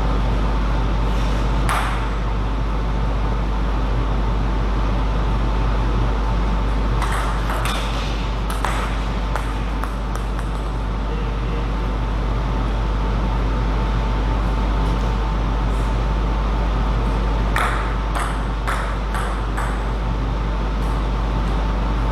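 Table tennis ball clicking off bats and table in short rallies: a single click early, then runs of quick clicks about a third of the way in and again near the end. Under it runs a steady electrical hum with a thin high steady tone.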